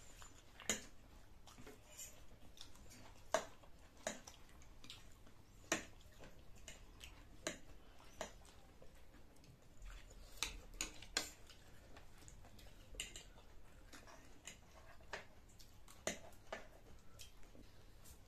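Eating noodles: irregular sharp clicks and taps of a fork and chopsticks against plastic plates, about one or two a second, with soft chewing and slurping of noodles.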